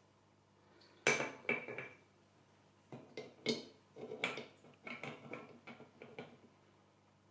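Hard objects clinking and knocking during the setup of a mini paludarium: a dozen or so irregular sharp taps, some with a short ring, the loudest about a second in.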